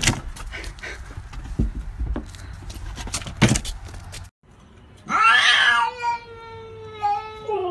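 Domestic cat's long, drawn-out yowl starting about five seconds in, loud at first, then held as a steady wailing tone that bends down in pitch near the end. Before it, scattered knocks and rustles.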